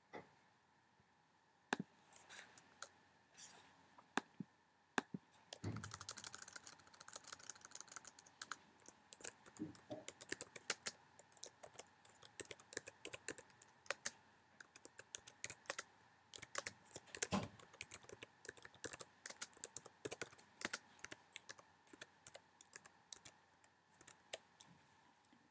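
Typing on a computer keyboard. A few single key clicks come first, then a fast, uneven run of clicks starts about five and a half seconds in and lasts until just before the end.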